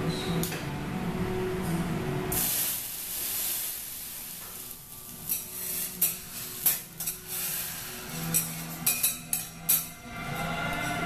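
Oil or food sizzling on a hot steel teppanyaki griddle, then a string of sharp metal clinks and taps from spatulas and utensils on the plate.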